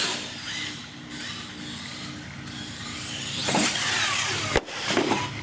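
R/C monster truck's motor whining as it revs hard, its pitch sliding, then a sharp smack about four and a half seconds in as the truck comes down from a jump.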